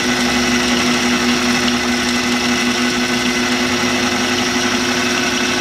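Food processor running steadily on low with a constant hum, its S blade chopping pine nuts and garlic.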